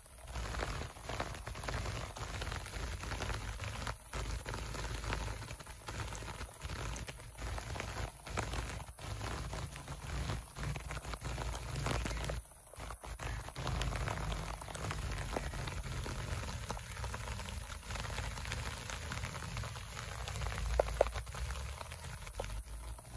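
Steady heavy rain falling on trees and grass, an even hiss with a low rumble underneath. A brief sharp sound stands out near the end.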